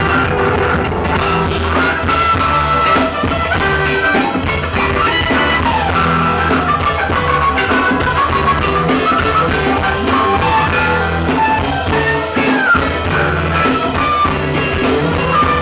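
Live funk band playing, with drums, bass, guitar, keyboards and a horn section of trumpet and baritone saxophone.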